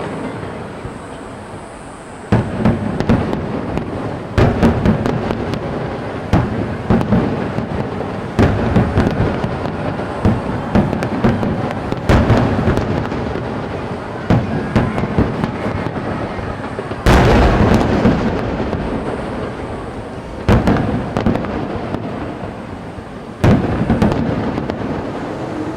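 Aerial fireworks shells bursting in a steady series of booms, one every second or two, each followed by a long rolling echo. One of the loudest booms comes about two-thirds of the way through.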